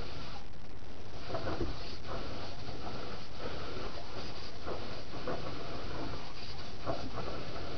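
Garden hose running water steadily into a plastic kiddie pool, with a Rottweiler lapping and splashing at the water now and then.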